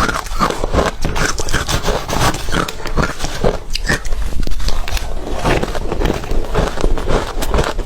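Ice being bitten and chewed close to the microphone: a dense run of irregular crunches and cracks.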